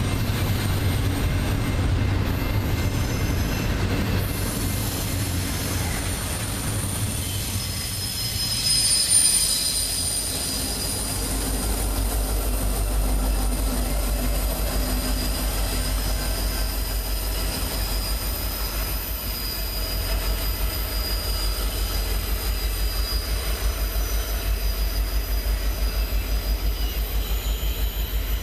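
Double-stack container well cars rolling past with wheel noise, their wheels squealing high and steady. About halfway through, a Union Pacific SD70ACe pusher locomotive passes at the rear with its two-stroke EMD 710 diesel running in an even low pulse, while the wheel squeal carries on.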